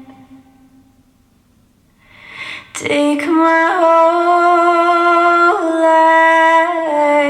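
Woman's voice singing slow, long-held notes with no accompaniment, after a hush of about two seconds; the notes enter near the middle and one long note gives way to another about two-thirds of the way through.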